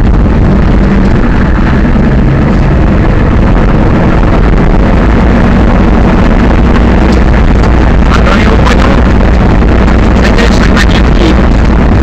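Big Foot monster truck's engine running steadily under way, heard loud from inside the cab, with a continuous low hum.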